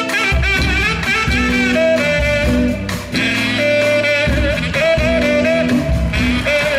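Live band playing a song: guitar, bass and drums under a wavering lead melody line.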